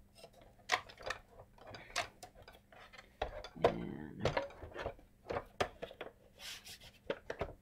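Irregular clicks, taps and knocks from the plastic housing of a Bose Acoustic Wave CD3000 being handled as its cables are plugged back in and the top section is closed onto the base, with a longer rattling clatter about three and a half seconds in.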